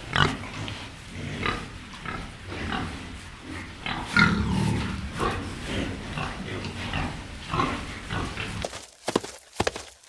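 Small white pig grunting repeatedly as it drinks water from a plastic wading pool, with one longer, louder grunt about four seconds in.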